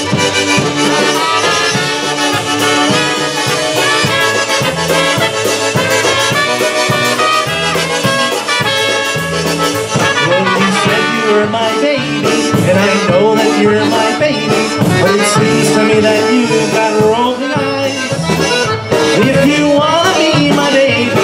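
Polka played live on piano accordion and concertina, with a regular bass pulse under the melody. A man sings into the microphone near the end.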